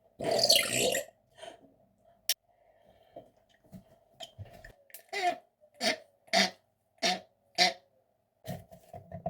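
Congo African grey parrot mimicking a burp, a long noisy burst near the start. A run of about six short, similar sounds follows about two a second, a few seconds later.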